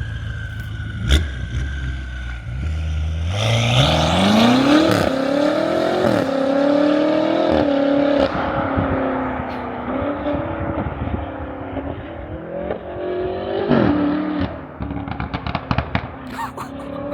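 BMW F90 M5's twin-turbo V8 through a catless straight-piped exhaust: a low run at first, then about three seconds in it accelerates hard, the pitch climbing and dropping back at each upshift. Near the end it comes off the throttle with a quick run of exhaust pops and crackles.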